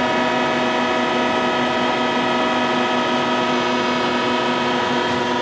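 Haas VF-5 CNC vertical machining center running under power: a steady, even machine hum made of several held tones, with no change in pitch or level.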